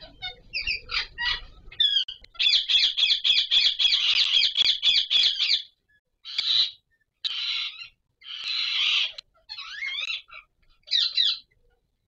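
Indian ringneck parakeets calling while mating: a few short calls, then a rapid run of repeated chattering notes for about three seconds, then a string of five separate harsh squawks.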